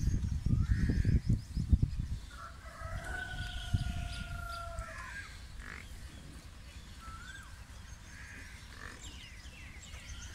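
A rooster crows once about three seconds in, ending in a long held note of about two seconds, with small birds chirping around it. A low rumbling noise is loudest in the first two seconds and then dies down.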